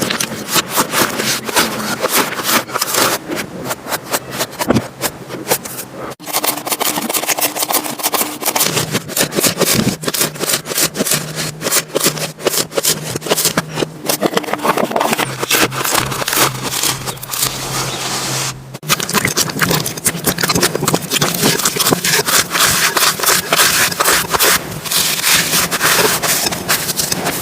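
Slime being squished and worked by hand, giving a dense, continuous crackling and popping with wet rubbing, broken by two brief cuts.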